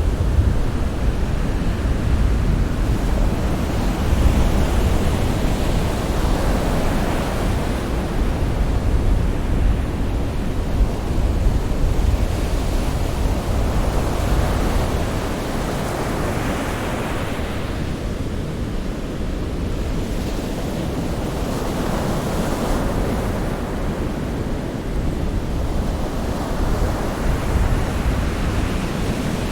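Ocean waves breaking and washing on a shore, a steady rush with slow swells as each wave comes in, with deep rumble and some wind on the microphone.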